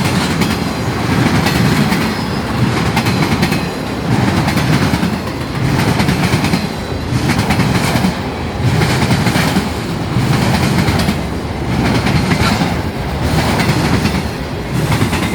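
Norfolk Southern train 375's cars rolling past at speed, the wheels clicking over rail joints, the level swelling and dropping regularly about every second and a half.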